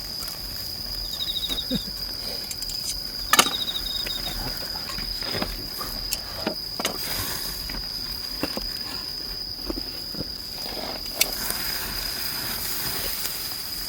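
Insects chirring: a steady high-pitched drone throughout, joined twice in the first four seconds by short pulsed chirps. Scattered clicks and knocks, the sharpest about three and a half seconds in.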